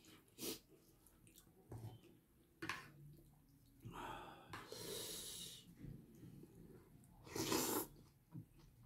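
Faint eating sounds from a plate of hot chop suey noodles: a few soft clicks, then two airy slurps. The louder slurp comes about seven and a half seconds in, as noodles are sucked up.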